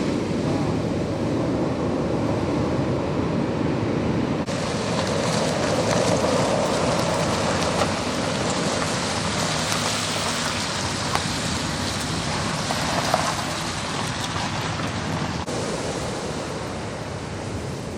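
Heavy ocean surf breaking, with water rushing in as a steady roar of noise that swells louder for several seconds in the middle.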